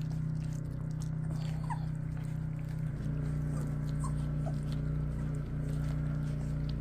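Four-week-old cockapoo puppies eating raw minced meat, with small clicks of chewing and a few brief, high puppy squeaks, over a steady low hum.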